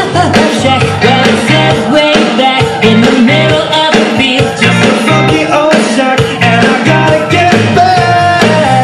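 A song playing for a dance routine: a singing voice over a steady beat.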